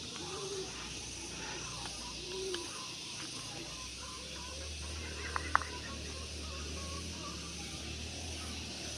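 A cat meowing twice in short rising-and-falling calls, near the start and about two and a half seconds in, over a steady hiss. Two sharp clicks come close together about five and a half seconds in, and a low hum sets in shortly before them.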